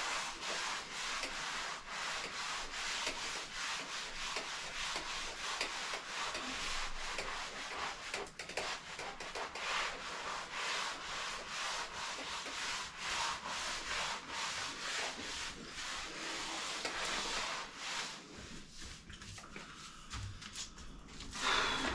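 A float being rubbed over fresh cement render on a wall, rapid back-and-forth scraping strokes smoothing the wet surface, easing off near the end.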